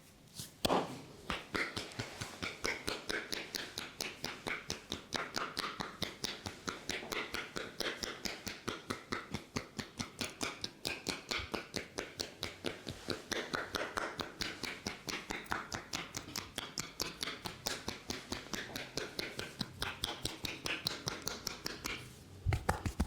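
Rapid rhythmic tapping of a barber's hands on the head in an Indian head massage, about five sharp slaps a second. The slaps stop briefly near the end, then start again louder.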